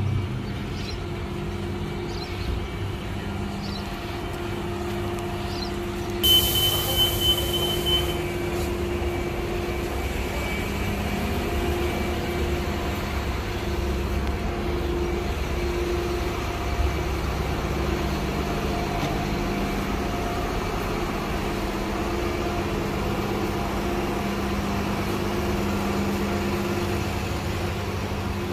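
Battery-electric city bus running at a stop, giving a steady electric hum. About six seconds in, a loud burst of hissing air lasts about two seconds.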